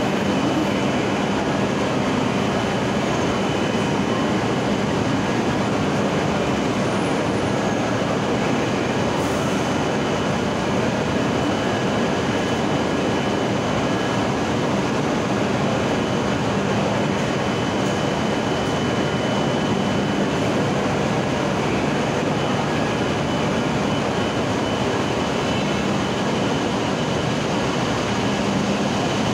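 Steady hum and whir of an E7/W7-series Shinkansen standing at the platform, its onboard equipment running, against the noise of a large station hall. The sound stays even with no build-up.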